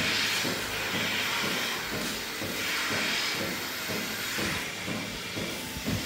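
Milking-parlour milking machines running: a steady hiss of vacuum and air that swells and fades, over a quick, regular low pulsing of the pulsators.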